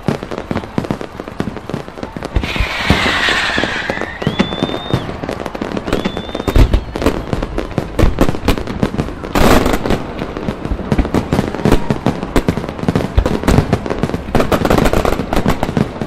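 Fireworks display: dense, rapid crackling of bursting stars with several heavy booms of shells going off. Two whistles rise in pitch about four and six seconds in.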